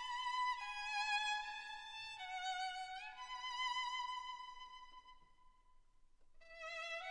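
Background music: a solo violin playing a slow melody of long held notes with vibrato, fading almost away about five seconds in before the next phrase starts.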